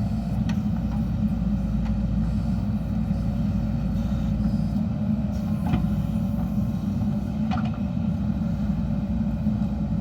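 JCB 3DX Super backhoe loader's diesel engine running steadily under working load while digging, with a few light knocks scattered through.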